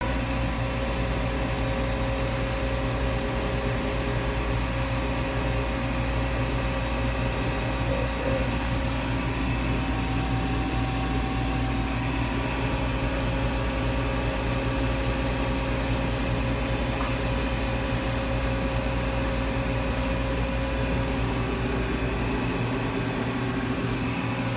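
Mighty Viper PBM-135A CNC horizontal boring mill running under power: a steady machine hum with several constant tones.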